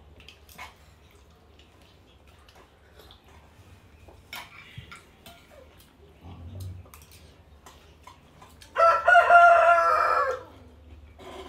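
A rooster crowing once near the end, a loud call about a second and a half long. Before it, faint clicks of spoons against plates.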